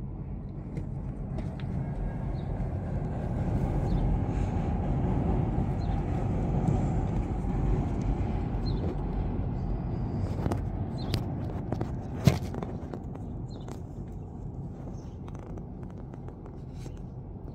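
Low traffic rumble from the street: a vehicle passing, swelling over several seconds and then fading. Faint short high chirps come now and then, and there is one sharp click about twelve seconds in.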